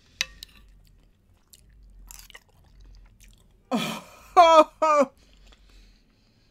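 A couple of sharp spoon clicks and quiet chewing of jelly. About three and a half seconds in there is a rushing breath, then two short vocal cries falling in pitch, a woman's pained reaction to the burn of 2x spicy sauce.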